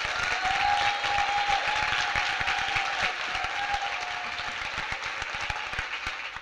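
Large audience applauding: dense, steady clapping that eases off over the last couple of seconds.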